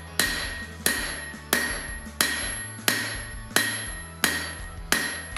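Hand hammer striking a hot steel bar on an anvil: eight evenly spaced blows, about one and a half a second, each with a bright ring from the anvil. The blows are drawing out the tang of a knife.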